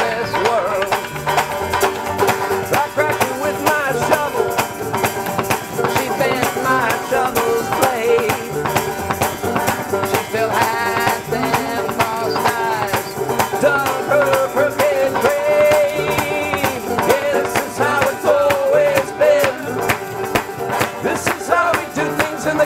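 Acoustic country band playing an instrumental passage: banjos picking over a walking upright bass with a steady beat.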